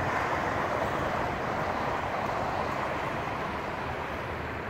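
Steady rush of passing vehicles, slowly fading away.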